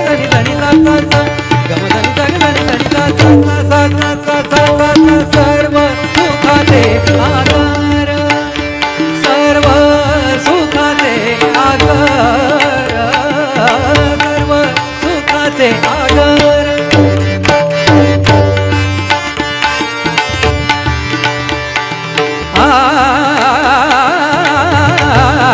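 Tabla solo played fast over a steady harmonium melody, crisp right-hand strokes mixed with deep left-hand bayan strokes. About 22 seconds in, a man's singing voice comes in over the accompaniment.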